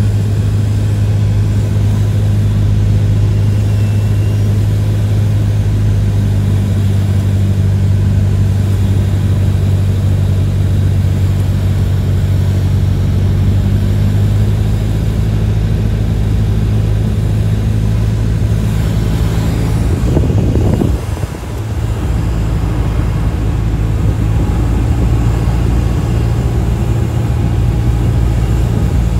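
Steady drone of a single-engine light plane's piston engine and propeller, heard inside the cabin in flight. The drone briefly dips and wavers about two-thirds of the way in.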